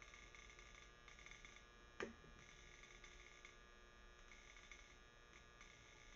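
Faint steady electrical hum with a thin high whine, and one sharp click about two seconds in.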